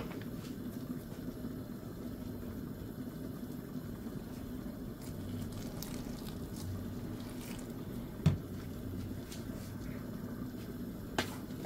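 Water poured from a jug onto flour in a bowl, being added to make dough, with a steady low hum underneath. A single dull thump comes about eight seconds in.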